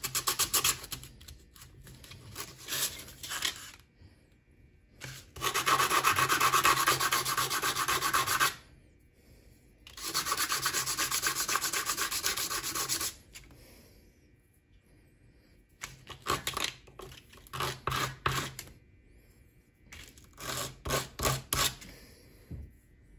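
A small metal part of an N scale model car sanded by hand, rubbed back and forth on a sheet of sandpaper. Quick scraping strokes at first, two long fast spells of about three seconds each in the first half, then shorter bouts of strokes with pauses between.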